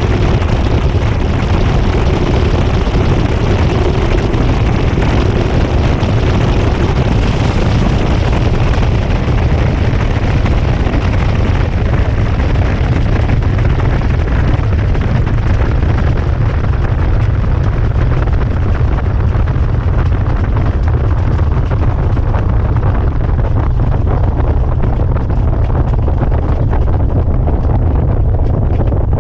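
GE GTW220ACKWW top-loading washer in its high-speed spin, heard from a camera fixed to the agitator inside the drum: a loud, steady low rumble with rushing air on the microphone. The upper hiss thins out over the last several seconds.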